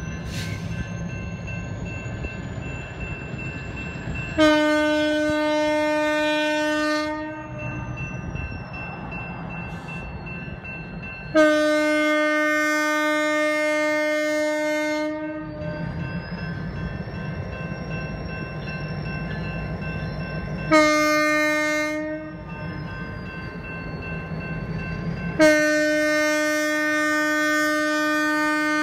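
BNSF diesel locomotive's air horn sounding the grade-crossing signal: two long blasts, a short one, then a long one that runs on. A low rumble is heard between the blasts.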